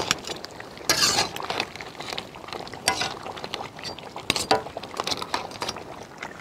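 Ladle clinking and scraping against a large pan of thick crab curry, irregular knocks with a few stronger ones every second or two.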